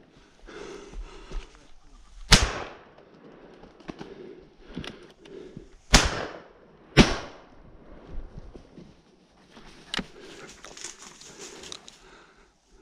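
Shotgun shots fired at flying wood pigeons: three loud reports, the last two about a second apart.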